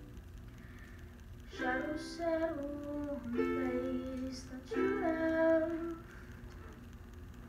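Ukulele strummed in three slow chords, each left to ring, with a woman singing over them from about a second and a half in. Chords and voice stop about a second and a half before the end.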